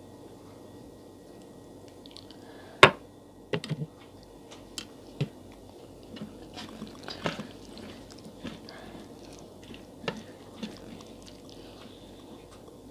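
Dal poured from a steel bowl onto plain rice on a steel plate, with a sharp knock about three seconds in and a few smaller clicks just after. Then fingers mix the rice and dal by hand: soft wet squishing with light taps on the plate.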